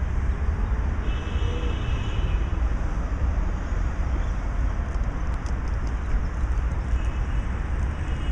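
Steady city street traffic: a constant low rumble of passing cars, with a faint brief high tone about a second in.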